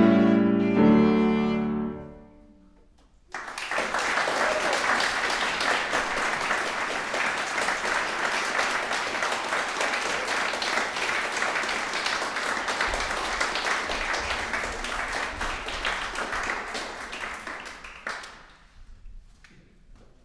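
Viola and piano holding a final chord that dies away about two seconds in; after a brief hush, audience applause breaks out and carries on for about fifteen seconds before fading out.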